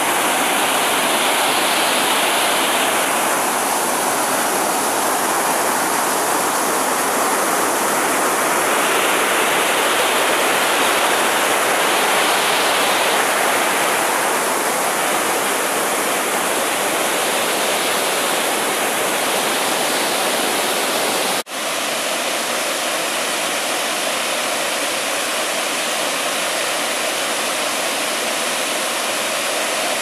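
Mountain stream rushing over boulders in small cascades, a steady loud rush of water. It breaks off for an instant about two-thirds of the way through, then carries on a little quieter.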